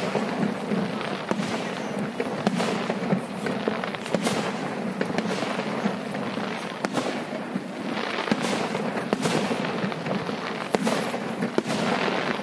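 Fireworks display: aerial shells bursting in repeated sharp bangs, over a steady background din.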